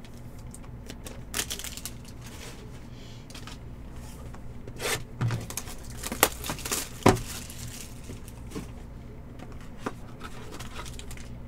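Trading cards and plastic card holders being handled on a table: scattered clicks and brief crinkles, a few louder taps midway, over a low steady hum.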